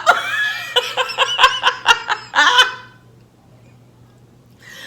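A woman laughing in a quick run of short ha-ha bursts that stops about two and a half seconds in.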